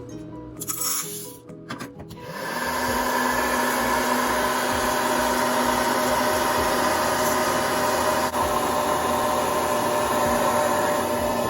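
Small electric coffee appliance starting about two seconds in and then running steadily: a motor and fan whirring with a constant hum.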